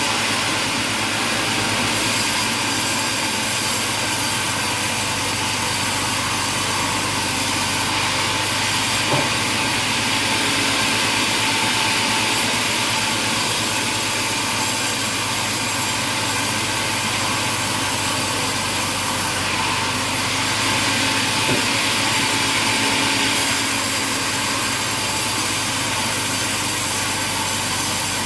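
Sawmill machinery running steadily, a continuous loud mechanical noise with a low hum, broken by a couple of small knocks.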